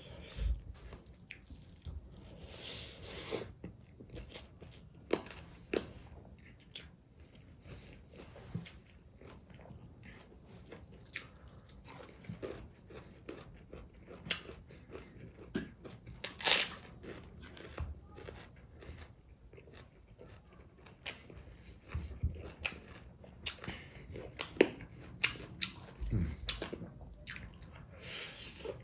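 Close-miked chewing and biting of food, with wet mouth clicks and small crunches at irregular intervals; a few sharper, louder crunches stand out, one about halfway through.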